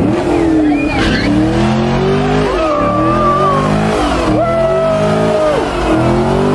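A car doing a burnout: the engine is revved hard about four times, its pitch climbing and then dropping back each time, while the spinning tyres squeal with long, held tones that fall off at their ends.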